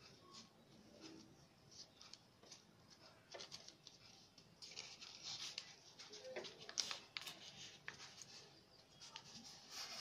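Faint rustling and crinkling of craft paper being handled and folded, with scattered light ticks, busiest around the middle.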